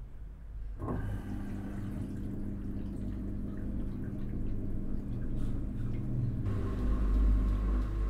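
LG FHT1208SWL direct-drive front-load washing machine in its rinse cycle: the drum motor starts turning about a second in with a steady hum, and water and laundry slosh in the tumbling drum. Near the end the sound shifts to a deeper rumble with a steady higher whine.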